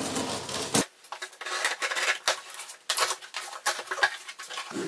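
A scissor blade slits along the packing tape on a cardboard box, with a sharp snap just under a second in. After that come irregular crackling and rustling as the cardboard flaps are pulled open.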